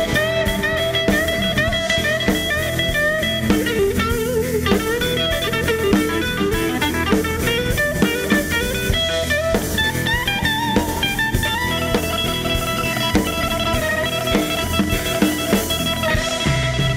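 Electric blues played live: a Stratocaster-style electric guitar takes a lead with many bent, sliding notes over bass and a drum kit.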